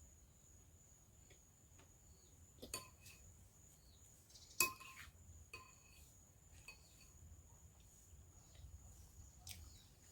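Eating utensil clinking against a dish twice, about three and four and a half seconds in, each strike leaving a short ring, with a few fainter taps around them.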